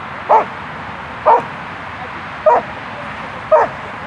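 A dog barking: four short barks, roughly a second apart.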